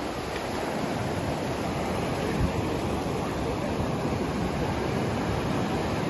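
Ocean surf: small waves washing up over the sand and running back, a steady rushing noise with no single crash standing out.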